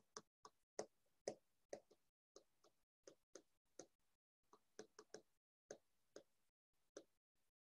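Faint, irregular taps and ticks of a stylus on a tablet's screen while handwriting, about two or three a second.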